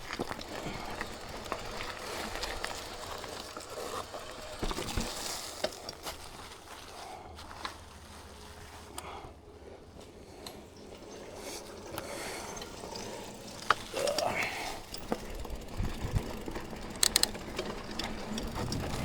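Mountain bike ridden down a dirt trail: the rear hub's ratchet clicking while coasting, over a steady rattle of tyres and bike, with sharp knocks over bumps.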